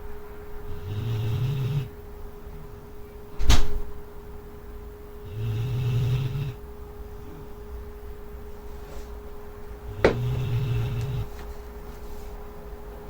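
Collie snoring in her sleep: three low snores, each lasting about a second, coming every four to five seconds. A single sharp thump between the first and second snore is the loudest sound.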